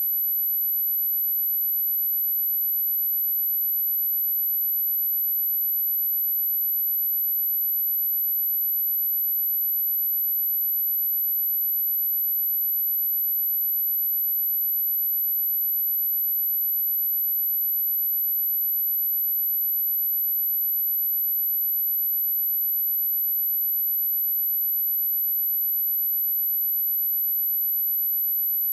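A steady, high-pitched pure sine-wave test tone at 11927 Hz, held at one unchanging pitch and level.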